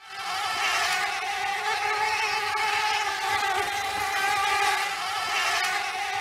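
Swarm of flying insects buzzing in a steady, loud drone that starts suddenly.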